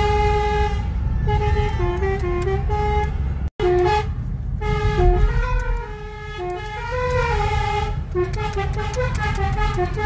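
Basuri telolet musical car horn playing a tune of short stepped notes, over a low road and engine rumble. The sound cuts out completely for a split second about three and a half seconds in.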